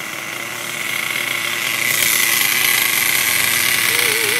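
Remote-control toy car's electric motor running, a high whirring hiss that grows louder about two seconds in as the car speeds up. A wavering tone starts near the end.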